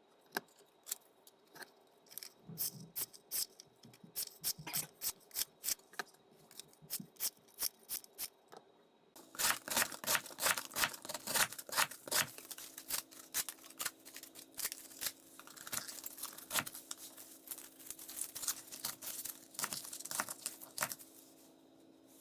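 Bestech Sledgehammer folding knife worked in a long run of short metallic strokes, about two to three a second. The strokes turn denser and louder about nine seconds in.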